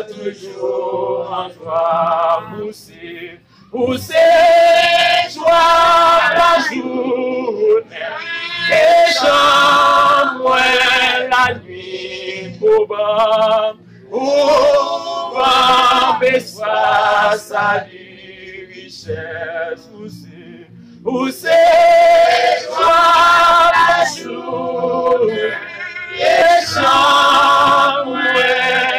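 Male and female voices singing a worship song together in the prayer service, in sung phrases with short breaks between them.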